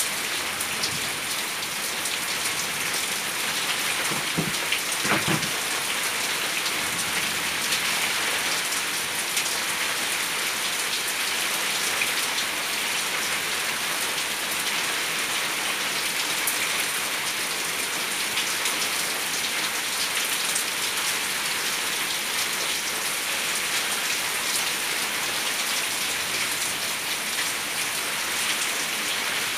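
Rain falling steadily onto a paved yard, a continuous even hiss of drops.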